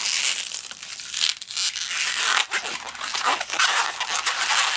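Inflated 260 latex modelling balloon being twisted by hand into a small bubble: the rubber rubs and squeaks against itself and the fingers in a continuous crackly friction noise.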